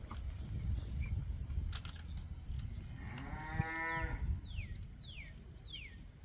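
A cow lowing: one drawn-out moo about three seconds in, lasting just over a second. The cattle are calling to be fed whey at feeding time. Over the second half, a bird gives short falling whistles about every half-second.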